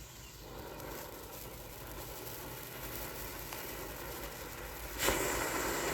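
Consumer firework fountain burning with a steady spraying hiss that builds slowly, then jumps suddenly louder about five seconds in.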